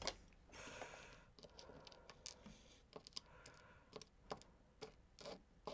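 Faint, irregular light clicks and a little scratching of small lock pins and springs being handled as a lock core is disassembled.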